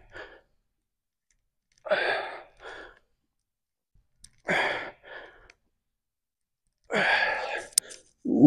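A man breathing out hard on each rep of dumbbell sumo squats, one strong exhale and a smaller follow-up breath about every two and a half seconds. Near the end there is a click and a knock as the dumbbell goes down to the floor.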